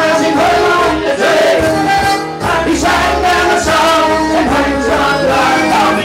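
Live folk band playing: accordion and acoustic guitar with voices singing along, a steady dance tune.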